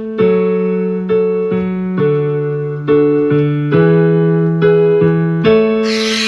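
Keyboard music: slow sustained chords, a new chord struck about every second.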